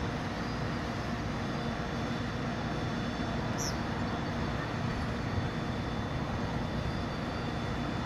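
Steady mechanical running of a crane's engine, an even low drone with no change in pitch.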